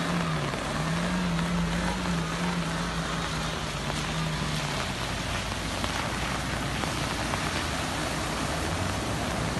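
Off-road 4x4 engine humming steadily as an SUV drives through a shallow pool of muddy water, tyres churning and splashing, under a continuous hiss of spray. The engine hum drops away about halfway through, leaving the splashing hiss.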